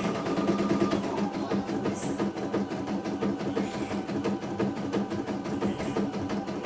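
CNY E900 computerized embroidery machine stitching, its needle mechanism going in a fast, even rhythm over a steady motor hum; a thin high tone drops out about a second in.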